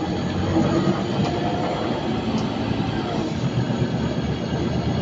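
Scania N230UD Omnicity double-decker bus on the move, heard inside the cabin: a steady mix of diesel engine, drivetrain and road noise with rattles.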